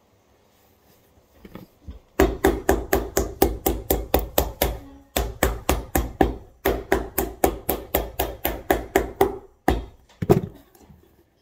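Cobbler's hammer rapidly pounding stacked, glued leather heel-base layers onto a boot heel, about five blows a second. The blows come in three quick runs with brief pauses, then a final couple of knocks.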